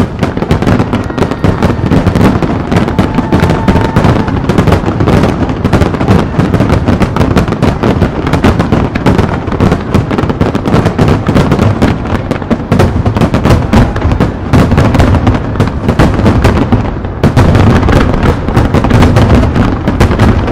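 Starmine fireworks: a rapid-fire barrage of aerial shells bursting in a dense, continuous string of loud bangs.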